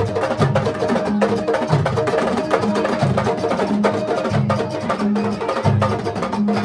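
Senegalese sabar drum ensemble playing a fast, dense rhythm: many sharp, cracking strokes layered over deep low drum tones, with no pause.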